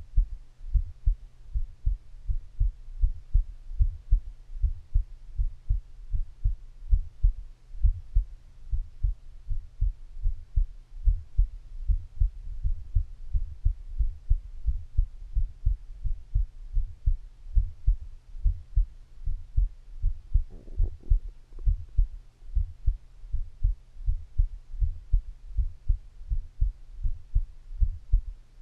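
A person's heartbeat: low, regular thumps, about two a second, over a faint steady hum. A brief faint higher sound comes in about two-thirds of the way through.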